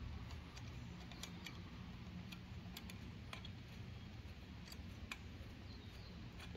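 A scattering of faint, irregular clicks from a 6 mm Allen key turning out the side stand's pivot screw, over a low steady hum.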